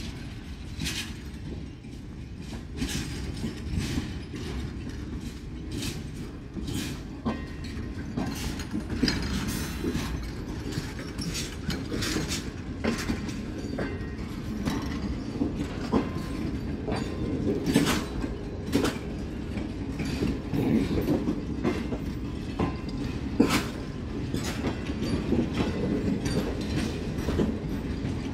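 Pakistan Railways passenger coaches rolling past during a shunting move, being backed along the station track: a steady rumble with irregular sharp clicks of wheels passing over rail joints.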